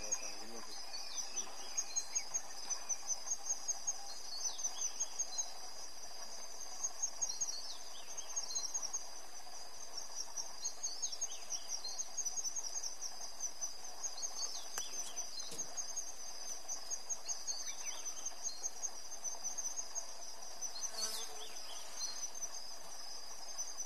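High-pitched insect chorus, shrilling steadily in rapid pulses, several a second, that come and go in runs.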